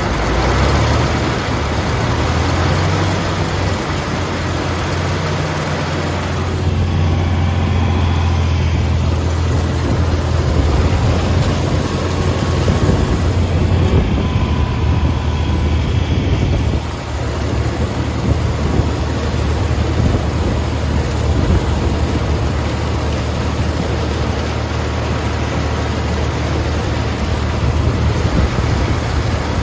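Tractor engine running steadily with a deep hum, under a constant rushing noise.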